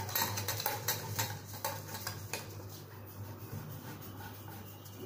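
Light clicking and scraping of a sink drain fitting being turned by hand in a ceramic basin as its thread is caught gently without tightening. The clicks come thick at first and thin out after about two seconds, over a steady low hum.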